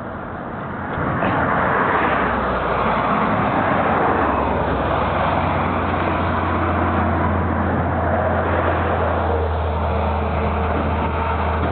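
Riding on a motorcycle at speed: wind rushing over the microphone and the engine's steady low drone, growing louder about a second in. Near the end an engine note joins as an oncoming tanker truck approaches.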